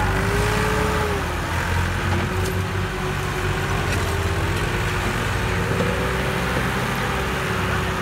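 Massey Ferguson 260 turbo tractor's diesel engine running hard under heavy load, pulling a log-laden trolley. A whining tone climbs in pitch over the first second, then holds steady over a continuous low rumble.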